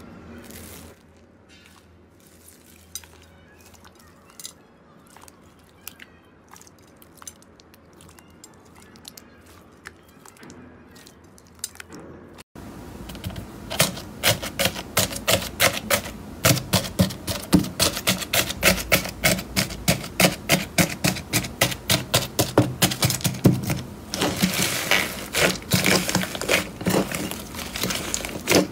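Slime being pressed and squeezed by hand: sparse small clicks and crackles at first, then, after a sudden cut about halfway through, a loud, dense run of crackling pops at roughly three a second.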